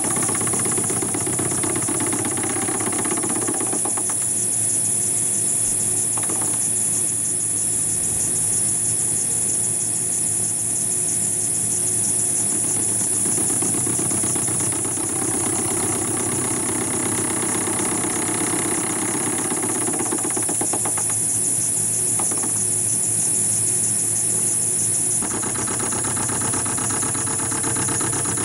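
Metal lathe running, its electric motor humming under a high steady whine, while a carbide tool takes an intermittent facing cut across a metal workpiece. The cutting noise swells twice, in the first few seconds and again in the middle.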